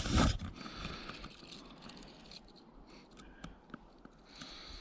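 Handling noise: a knock and rumble at the start, then faint scraping and rustling with a few light clicks.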